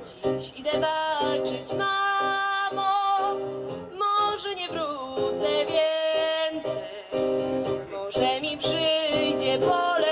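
A woman singing a slow song into a microphone, with a strummed acoustic guitar accompanying her.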